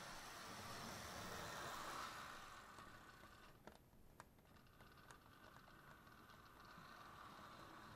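Faint running of an HO-scale model diesel freight train: a low steady whir of the small locomotive and its wheels on the track, with a few light clicks in the middle as the train passes close by.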